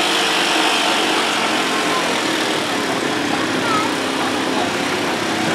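A small ATV engine running hard and steady under load while it drags a weighted pulling sled across dirt.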